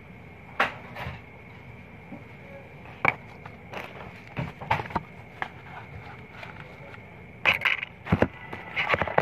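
Scattered sharp clicks and knocks, several close together near the end, over a steady faint high-pitched hum.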